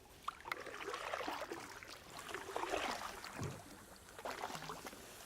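Water splashing and trickling against a kayak, irregular small splashes and drips that fade in the last second or two.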